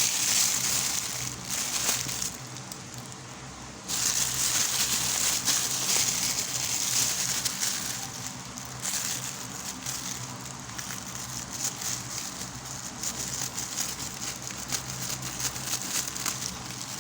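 Packaging crinkling and rustling in irregular stretches as a parcel is handled and opened, with a brief lull about two seconds in. A faint steady low hum runs underneath.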